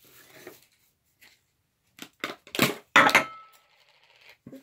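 A run of clattering knocks from hard objects dropped onto the table and plate, the loudest about three seconds in, with a short ringing clink.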